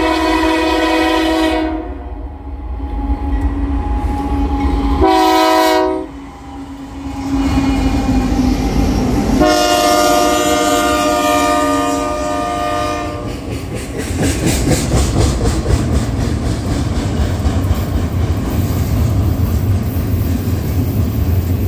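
Union Pacific diesel freight locomotive's multi-chime air horn, sounded three times: a blast that ends about two seconds in, a short one about five seconds in and a long one from about nine to thirteen seconds. The locomotives then rumble past close by, followed by double-stack container cars clattering steadily over the rail joints.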